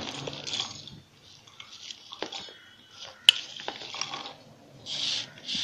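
Chopped green and red chillies and garlic cloves dropped by hand into a stainless-steel mixer-grinder jar: scattered light taps and clicks on the steel, one sharper click a little past halfway, and two short rustles near the end.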